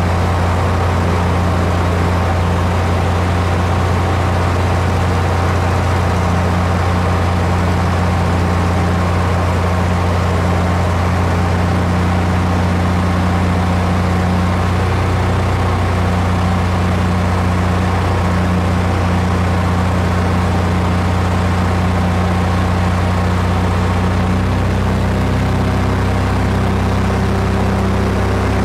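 Aircraft engine droning steadily and loudly, heard from on board, with its note shifting slightly near the end.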